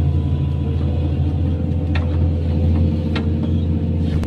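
Large diesel engine, likely the excavator's, running at a steady low hum, with two faint clicks about two and three seconds in.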